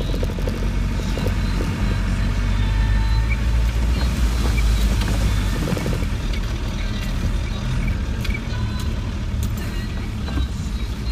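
Land Rover 90's diesel engine running steadily, heard from inside the cabin, with scattered rattles and knocks from the body as it rolls along a rough track. A rushing noise swells for a couple of seconds around the middle.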